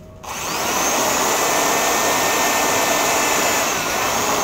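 Corded 350-watt electric drill, powered from a 12 V battery through an inverter, starting up and running at speed while boring a hole through thick wood. Its motor pitch sags briefly near the end.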